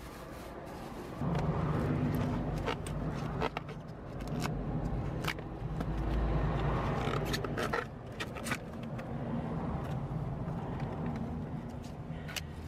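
Scrapes and sharp clicks of gloved hands handling clamps, tape and fittings on a copper water pipe, over a steady low hum that starts about a second in.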